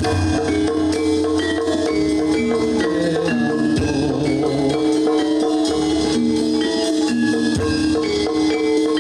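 Javanese gamelan music accompanying a jathilan dance: a steady stream of ringing struck metallophone notes over drums and low bass notes.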